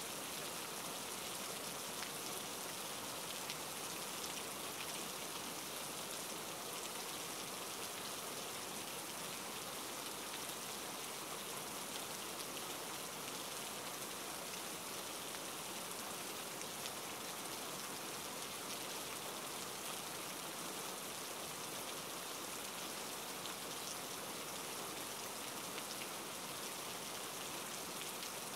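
Steady, even hiss of water over flooded ground, with faint scattered ticks.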